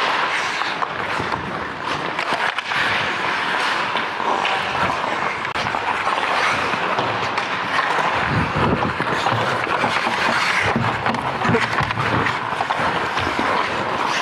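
Hockey skates carving and scraping across the ice close to the microphone, with scattered clacks of sticks and puck, and low thumps around eight seconds in and again near eleven seconds.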